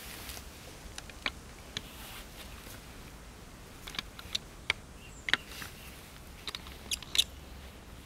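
A scattering of short, sharp clicks and ticks, about ten of them at irregular intervals, some in quick pairs, the loudest in the second half.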